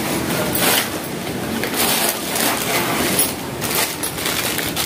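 Clear plastic wrapping crinkling and rustling in a run of irregular crackles as a hair curling iron is unwrapped from its packaging.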